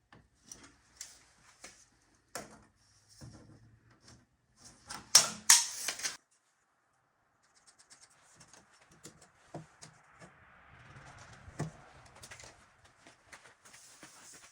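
Scattered clicks and knocks of hands working with a tape measure and pegboard, with a loud scraping burst about five seconds in that lasts around a second.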